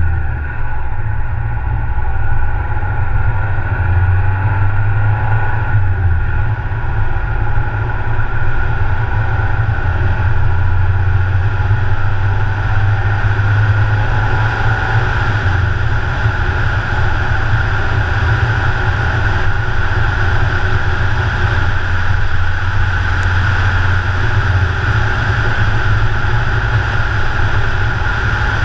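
Car driving along an open road: a steady heavy rumble of road and wind noise, with the higher road and tyre hiss growing stronger from about halfway through as the car gathers speed.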